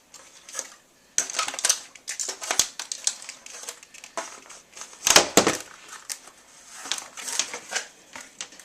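Stiff plastic packaging crinkling and rustling with irregular clicks and snips as the ties holding a cable in its package are cut and pulled away, with one louder sharp clack about five seconds in.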